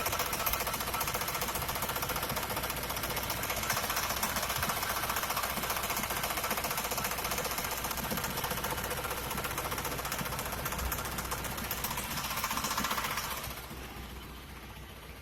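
1979 Pontiac Grand Prix's 4.9-litre V8 running cold with a rapid, steady ticking from under the car, which the owner thinks could be the oil pump. The sound falls much quieter near the end.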